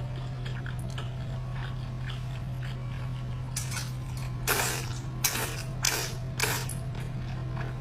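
Close-miked crunching while eating, with about five short loud crunches in the middle, over a steady low hum.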